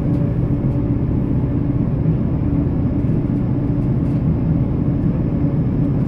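Model train running along the track, heard from the camera car it carries: a steady low running noise with a faint hum and a few faint clicks.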